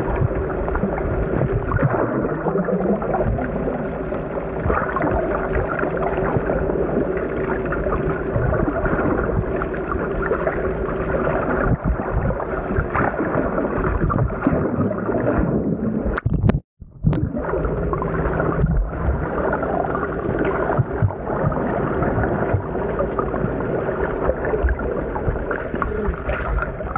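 Underwater sound: a steady hum, most likely the fishing boat's engine carried through the water, with a tone that rises briefly a few seconds in, over water rushing and gurgling from a swimmer moving beneath the hull. The sound cuts out for a moment past the middle.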